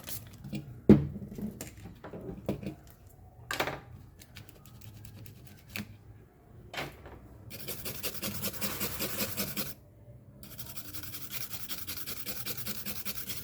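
A brush scrubbing a circuit board clean after soldering. A few light clicks and taps come first. About seven seconds in, fast scratchy scrubbing starts; it stops briefly and then resumes.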